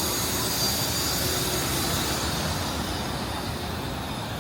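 Street traffic: a vehicle passing close by, a loud rushing hiss that eases off after about three seconds.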